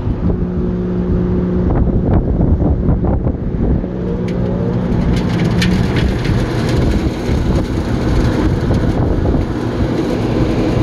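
CaptiveAire rooftop restaurant exhaust fan, with its newly installed replacement motor, switched on and running, moving air again. A steady motor hum over rushing air, with a few light clicks in the first seconds and a hum that rises slightly in pitch about four seconds in.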